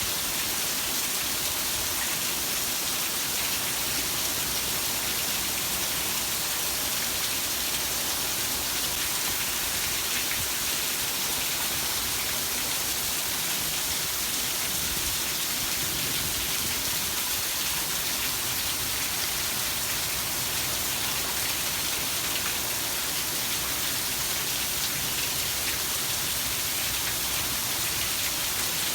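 Heavy rain falling steadily, an even hiss of many drops on surfaces.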